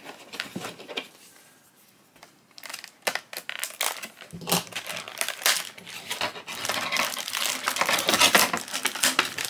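Thin clear plastic packaging crinkling and crackling as it is handled and pulled open to unwrap a small collectible figure. It is nearly quiet for the first two seconds, then the crinkling starts in irregular bursts and grows busier toward the end.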